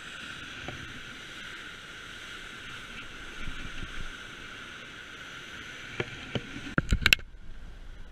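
Steady rush of dam spillway water churning into the river below. A few sharp knocks come near the end, from the camera being handled. After the knocks the rush gives way to a quieter flow.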